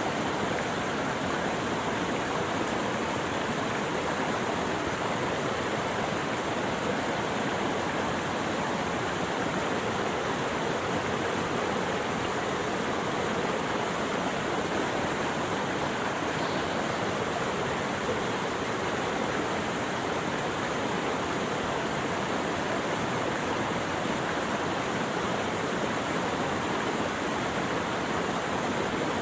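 Steady rushing water, an even unbroken hiss with no rise or fall.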